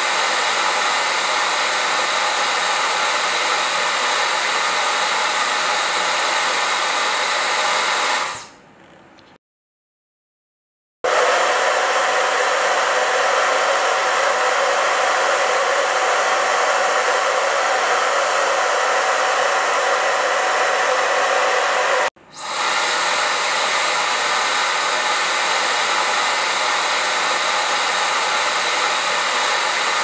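Hair dryers running steadily. The IG INGLAM MegaAIR Styler blows with an even rush of air, then falls away to silence about a third of the way in. A second, conventional-shaped hair dryer then starts at full blow, with a steady hum under its airflow. About two-thirds of the way in, it cuts back to the MegaAIR Styler's even rush of air.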